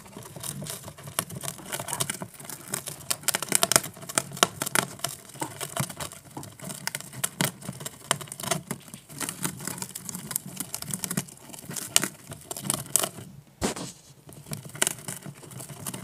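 Two Mongolian gerbils gnawing the edge of a cardboard sheet: rapid, irregular nibbling clicks and small tearing crackles, with a brief pause about thirteen seconds in.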